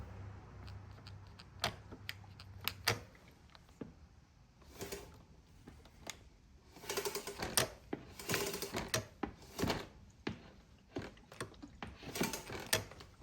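Hand work on a dirt bike's rear wheel, chain and brake: irregular mechanical clicks and rattles, with short scraping bursts about halfway through and again near the end.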